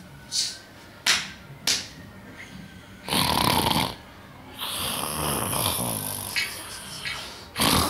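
A person snoring while asleep: a few short snorts in the first two seconds, then two long, drawn-out snores, one about three seconds in and a longer one about a second later.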